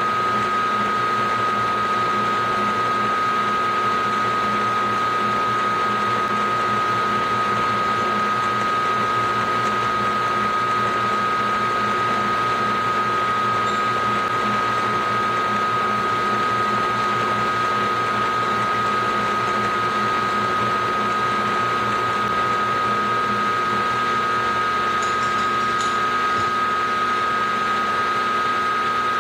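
Milling machine with a 7/8-inch roughing end mill cutting an aluminum block: a steady machining whine with one strong high tone.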